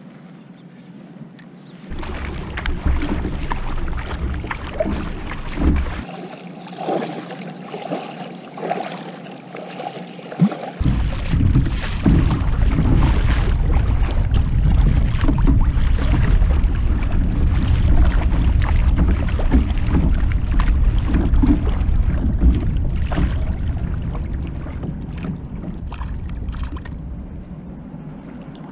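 Kayak paddle strokes splashing through choppy sea water, with wind rumbling on the microphone, loudest from about a third of the way in.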